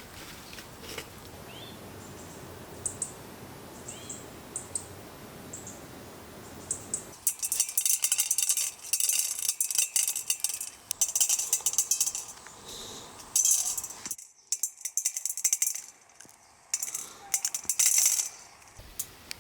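Dry rustling and crackling of corn being handled, in bursts of a second or two that start about a third of the way in, after a quieter stretch with a few faint short chirps.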